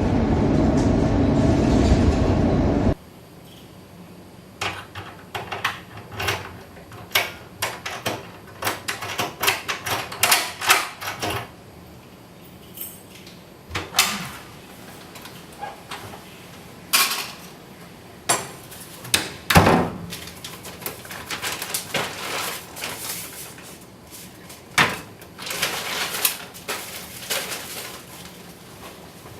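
Steady road-traffic noise that cuts off abruptly about three seconds in, followed by a quiet room with scattered clicks, knocks and clatter of household handling: doors, cupboards and dishes.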